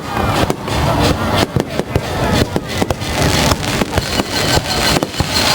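Fireworks display going off in rapid, irregular succession, with many sharp bangs and crackles a second over a continuous rumble.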